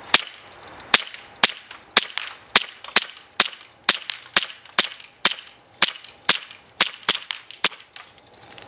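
Elite Force 1911 TAC CO2 blowback airsoft pistol firing a steady string of shots, about two a second, the slide blowing back on each one; incredibly quiet for a gun. The shots stop shortly before the end as the magazine of about 14 rounds runs out.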